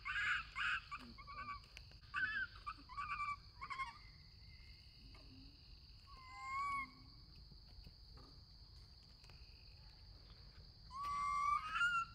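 Young macaque calling: short, high-pitched cries in bunches, several in the first few seconds, one more in the middle and another burst near the end. A steady high drone runs underneath.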